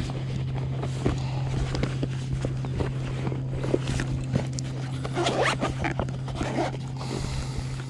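Hands opening and rummaging through a fabric bag: rustling and crinkling with scattered clicks, over a steady low hum.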